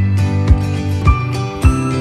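Background music with a steady beat, a little under two beats a second, under sustained melodic notes.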